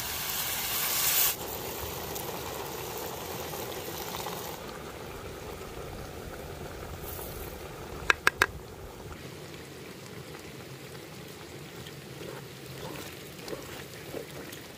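Beer hissing loudly in a hot cast-iron cauldron and cutting off about a second in, then the stew of beef and vegetables boiling steadily in the beer. About eight seconds in, three quick metal clinks as the cast-iron lid knocks the pot.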